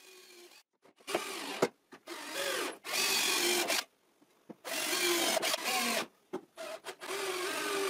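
Cordless drill driving screws into the wooden back support of an Adirondack chair, its motor whining in about six short runs with brief pauses between them.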